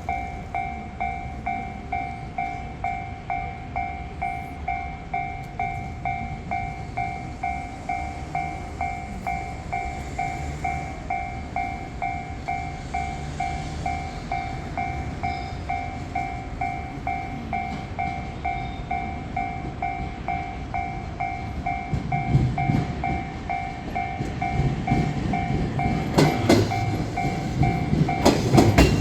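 Japanese level-crossing warning bell ringing steadily, about three dings every two seconds. A train's rumble builds over the last several seconds, with its wheels clacking over rail joints near the end.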